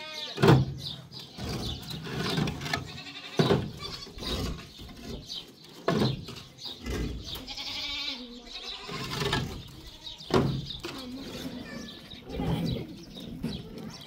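Goats bleating, a string of separate calls every couple of seconds.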